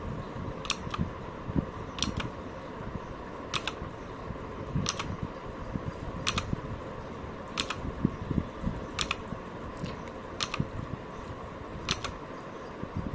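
Mechanical keyboard key with a clicky Jixian Blue switch pressed again and again, about one sharp click every second and a half, over a steady low hum.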